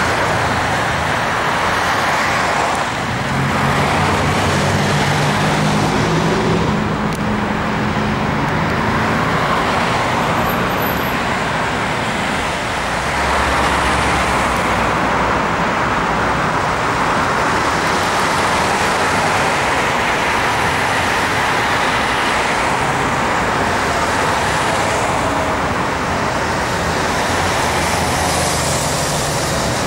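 Steady road traffic on a busy city street: cars and motorbikes running past, with a low engine hum in the first several seconds.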